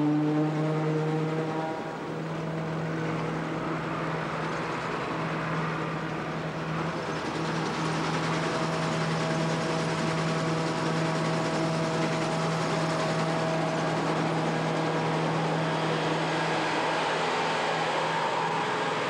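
Engines of a self-propelled forage harvester and a tractor pulling a silage trailer, running steadily: a continuous machine drone with a steady hum under a lot of hiss. A thinner, higher whine joins around the middle and fades out again.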